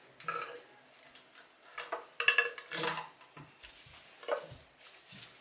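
Hand tools and loose engine parts clinking and clanking on a stripped-down engine: a few irregular metal knocks with a short ring, the loudest cluster about two to three seconds in.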